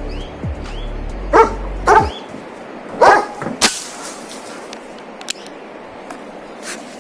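A dog barks three times, about a second and a half, two and three seconds in, followed shortly by a single sharp crack. Background music stops about two seconds in.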